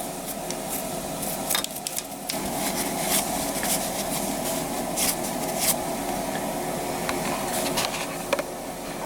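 Toothbrush scrubbing the gear-shift shaft splines of a three-wheeler engine, irregular short scratches and clicks, over a steady fan-like hum.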